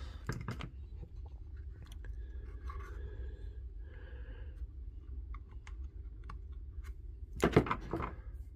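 Small clicks and light scrapes of tools and small parts being handled while a laser level is taken apart, over a low steady hum. A louder cluster of clicks comes near the end.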